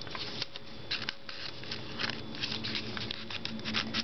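Paper and card pages of a handmade junk journal rustling and scraping as hands handle and turn them: a quick run of short, scratchy rustles over a faint steady hum.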